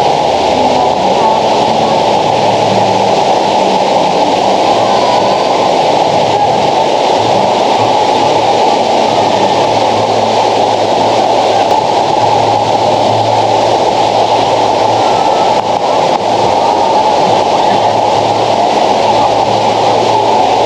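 Loud, steady rush of river water pouring through a dam or waterfall, with no change from start to end.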